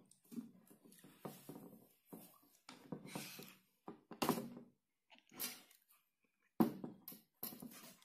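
Hands twisting and handling a dark screw lid on a jar, making a series of irregular scraping and rubbing sounds, with a sharper knock-like one about six and a half seconds in.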